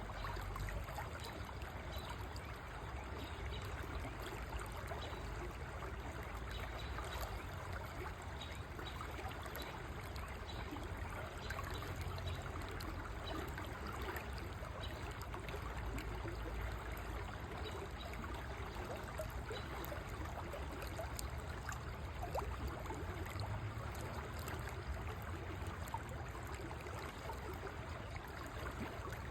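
A river flowing with a steady rush and trickle of water.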